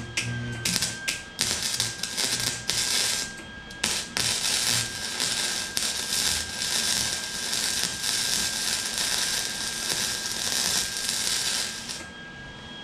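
Arc welder crackling as brackets are welded onto a steel exhaust pipe: several short tack bursts in the first four seconds, then one long continuous bead that stops near the end.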